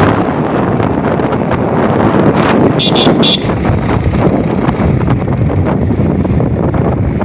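Wind buffeting the microphone of a moving motorbike, with engine and road noise underneath. About three seconds in, a horn gives three quick short beeps.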